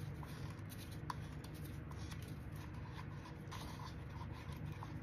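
Quiet room tone: a steady low hum with a few faint ticks and light rustling from handling small objects off to the side.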